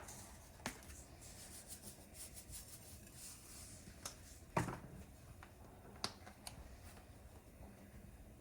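Faint clicks and a soft rustle as salt and pepper are added to breadcrumbs in a pan, with about five separate clicks, the loudest about four and a half seconds in.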